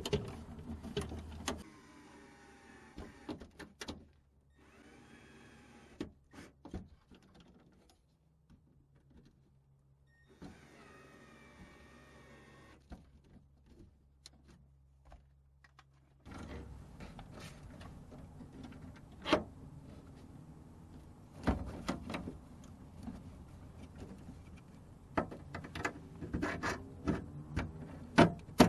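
Scattered clicks and metal taps of a door lock actuator and its rod being handled and fitted inside an open car door, in several short stretches, with a steady hum in the later half.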